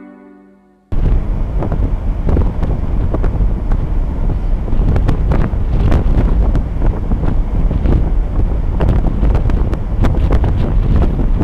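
Strong wind buffeting the microphone on a moving ship, over the rush of the ship's churning wake and a steady low rumble. It cuts in suddenly about a second in as fading music ends.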